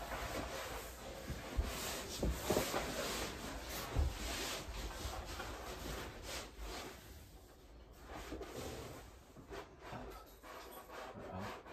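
Peel-and-stick wallpaper being handled and rubbed against a wall, with a few light knocks in the first four seconds. The rubbing grows quieter from about seven seconds in.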